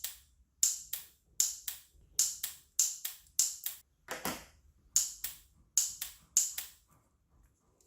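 A homemade battery-cell spot welder, switched by a motorcycle starter relay off a 12 V battery, firing repeatedly: about a dozen sharp snaps, mostly in quick pairs, with one longer crackle about four seconds in.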